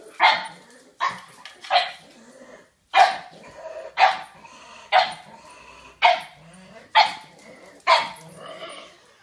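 A dog barking in play, about nine short, sharp barks spaced roughly a second apart.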